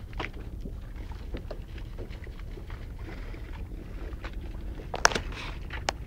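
Steady low rumble aboard a boat under way, with wind buffeting the microphone and scattered small clicks. A sharp knock about five seconds in, and a smaller one just before the end.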